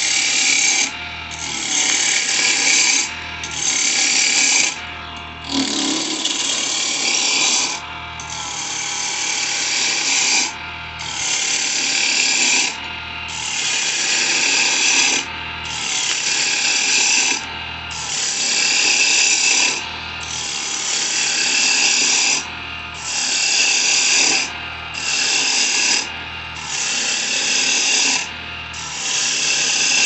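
Wood lathe turning a cedar blank while a hand-held turning tool cuts into it in repeated passes: a loud rushing hiss of shavings lasting one to two seconds each, about every two seconds, with the lathe's hum between passes.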